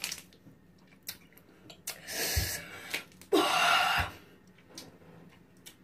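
A person breathing out hard twice, two noisy hissing breaths about two and three and a half seconds in, reacting to an intensely sour candy.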